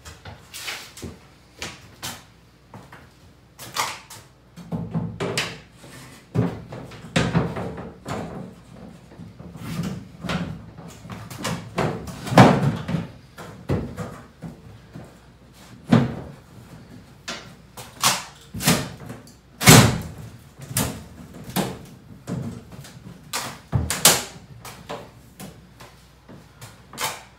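A shower surround panel being worked into place against the wall framing: irregular knocks, thumps and rubbing as it is pushed and bumped, none of it in a steady rhythm.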